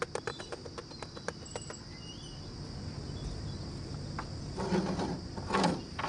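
Rapid knocking, about five sharp taps a second, of a wooden stick against the metal-mesh air filter element of an Ajax Argo 4000 concrete mixer to shake out the caked dust; it stops a little under two seconds in. After that a steady high insect buzz carries on, with a few bird chirps.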